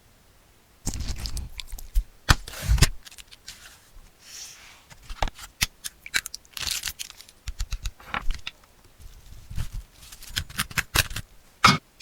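Close-miked eating sounds: food being torn, bitten and chewed with a series of sharp, irregular crunches and crackles.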